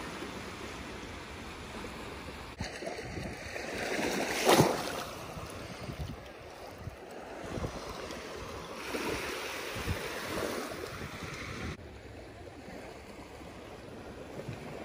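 Small Lake Michigan waves lapping and washing over a sandy shoreline, with some wind on the microphone. A louder rush swells up and peaks about four and a half seconds in.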